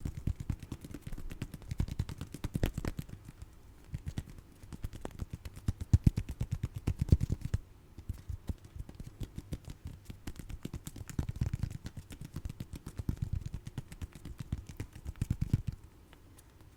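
Fingers tapping quickly on small cat-themed goods, in rapid runs of many taps a second with short pauses; the tapping stops near the end.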